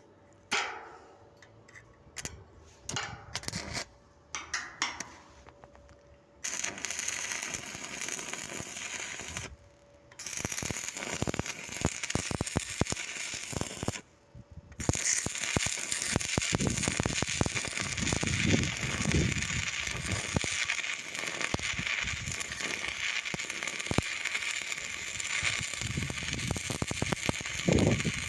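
Stick (MMA) welding arc crackling steadily, in three runs: the first two break off after a few seconds each and the last runs on. Before the arc, a few seconds of scattered clicks and scrapes.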